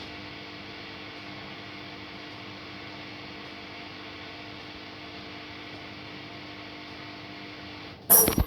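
Haier front-loading washing machine stopped mid-cycle, giving only a steady low hum. Near the end comes a sudden, short, loud bang.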